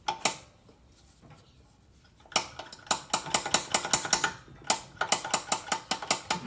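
Small metal parts clicking and tapping together during hand work on a Honda GCV160 engine's valve gear: two sharp clicks, then a pause, then a fast run of clicks, about four or five a second, from about two seconds in.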